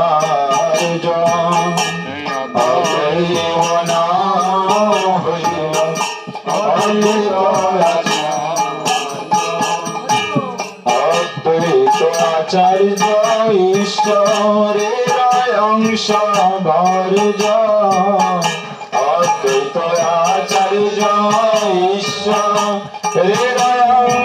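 Male voice singing a Bengali devotional kirtan, with percussion keeping a quick, steady beat of about three to four clicks a second.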